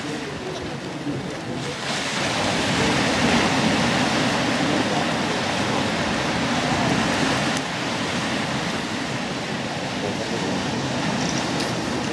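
Surf breaking and washing up a sandy beach, a steady rushing noise that swells about two seconds in and eases a little past halfway.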